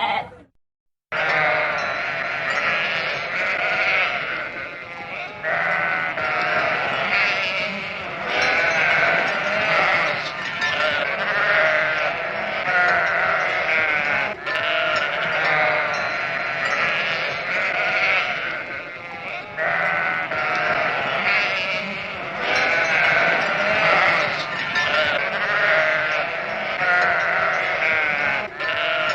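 A flock of sheep bleating, many calls overlapping almost without pause, after a brief silent gap right at the start.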